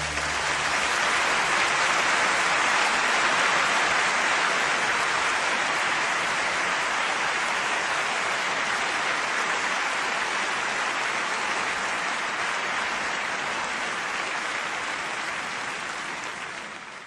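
Steady hiss of heavy rain, slowly fading toward the end.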